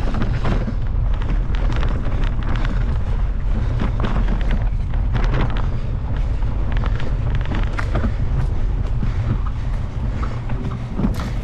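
Mountain bike ridden fast down dirt singletrack: wind rumbling on the camera microphone, tyres on the dirt, and the bike clattering and knocking over bumps and roots.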